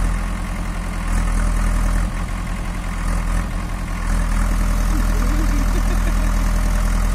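JCB backhoe loader's diesel engine running steadily. Its sound drops a little about two seconds in and comes back up about four seconds in.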